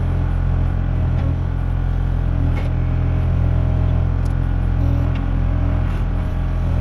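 Kubota KX040 mini excavator's diesel engine running steadily under load while the arm and bucket dig out palmetto roots, with a couple of faint clicks.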